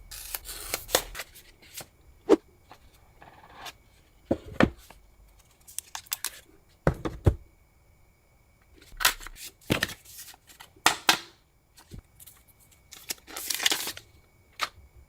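Phone packaging being handled and opened: irregular clicks and knocks of the box and its parts, with a few short bursts of tearing and crinkling wrapper, the longest about a second in and again near the end.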